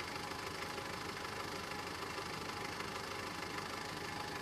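Mitsubishi Triton (L200) pickup's engine running steadily.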